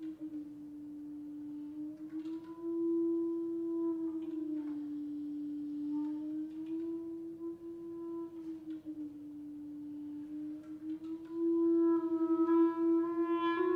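Clarinets holding a soft, long sustained note that bends slowly up and down by small steps in pitch. About twelve seconds in it grows louder and further clarinet lines come in above it.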